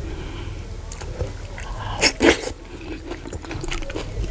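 Close-miked eating sounds of fufu with vegetable soup: wet chewing, mouth noises and the squish of soft fufu worked by hand in the soup, with one louder wet sound about two seconds in.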